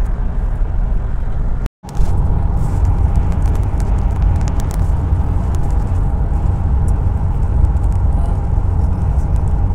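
Steady low rumble of a road vehicle driving, heard from inside the cabin, breaking off for an instant just under two seconds in and then carrying on with a faint steady hum above it.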